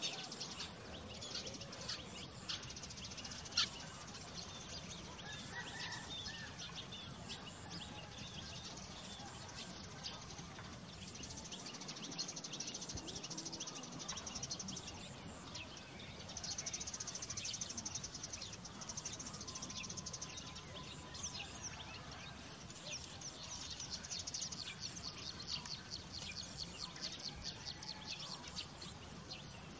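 Background chirping of small animals, rapid high trills repeating on and off throughout, with one sharp click about three and a half seconds in.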